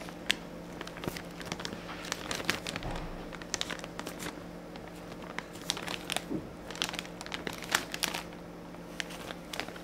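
Clear plastic bag crinkling in the hands as the plastic kit sprues inside it are turned over, in irregular clusters of crackles with short lulls.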